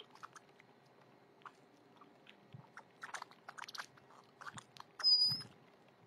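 A flock of grackles feeding, many small quick taps and clicks of pecking at seed, then about five seconds in one loud, high, electronic-sounding squeak lasting about half a second.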